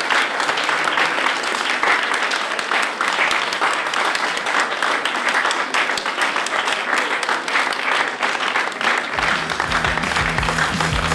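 Audience applauding, many hands clapping steadily. About nine seconds in, music with a low, rhythmic bass beat comes in under the clapping.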